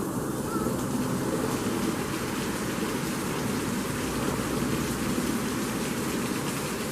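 Steady, unbroken rush of falling water, such as a waterfall or heavy rain.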